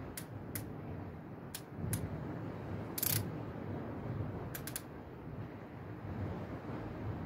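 Fishing reel being handled at the rod butt: a handful of scattered sharp clicks, some in quick pairs, over a low steady background noise.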